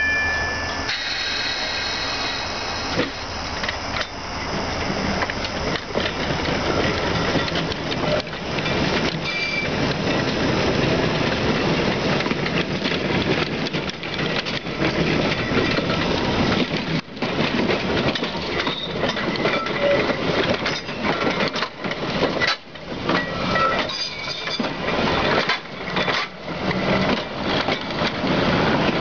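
A streetcar running along the track: a steady rumble of steel wheels on rail, with many knocks and clicks over the rail joints. A brief high wheel squeal comes at the very start, and the running gets louder a few seconds in as the car comes close.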